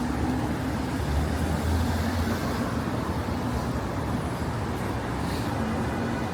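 City street traffic: motor vehicles running and passing, with a low engine rumble swelling about a second in.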